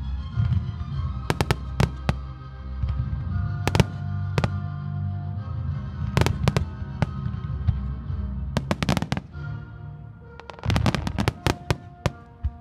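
Aerial fireworks bursting in repeated volleys of sharp bangs and crackles, a cluster every couple of seconds. Loud music with a heavy low end plays underneath.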